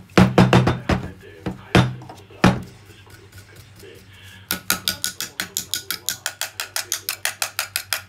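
A small metal hand tool scraping and tapping on a vacuum cleaner's motor unit: a few sharp knocks, then a quick, even run of scraping strokes, about six a second.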